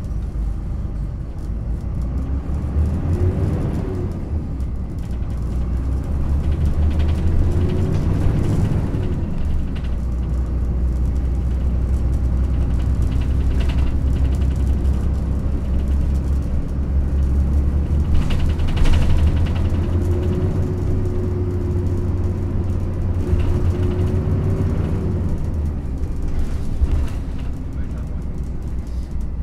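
Yutong ZK6128HG low-floor city bus heard from on board while driving: a heavy low rumble with an engine note that rises and drops twice in the first ten seconds, as the ZF automated manual gearbox works up through the gears, then holds steadier at cruising speed.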